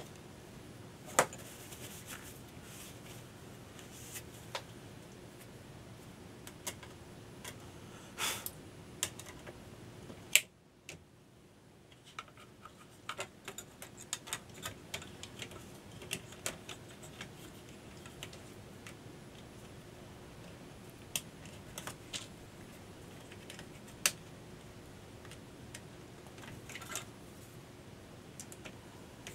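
Irregular clicks and taps of plastic front-panel parts and a circuit board being handled and set down on a workbench while an HP 3457A multimeter's front panel is taken apart, with a few sharper knocks about a second in, about ten seconds in, and about 24 seconds in.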